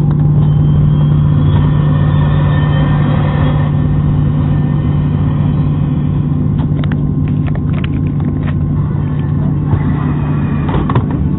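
Steady cabin hum and rumble inside a Boeing 737-700 airliner on the ground before take-off. A few light clicks and rattles come about two-thirds of the way through and again near the end.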